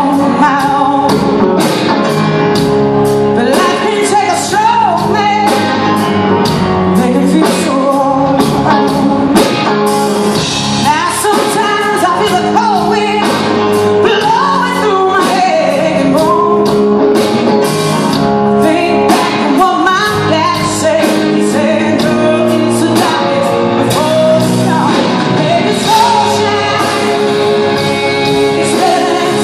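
Live rock band playing in a large hall: electric guitars, bass, drums and keyboard, with a woman singing long, gliding lines over the band.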